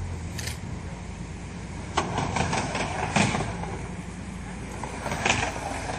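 Skateboard riding a vert halfpipe: a sharp clack about two seconds in, then wheels rolling and clattering on the ramp, with another clack near the end, over a steady low rumble.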